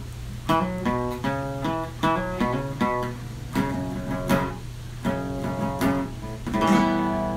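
A guitar strumming short chords, about two strums a second, ending near the end on a chord left ringing, over a steady low hum.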